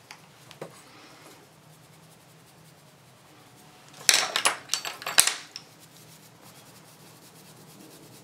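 Makeup brushes and plastic eyeshadow compacts handled on a wooden tabletop. There is a small click just after the start, then a short flurry of knocks and rubbing about four seconds in, lasting a second and a half.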